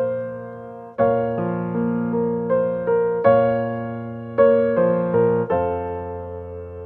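Background music: gentle solo piano playing slow arpeggiated chords, each note struck and left to ring and fade.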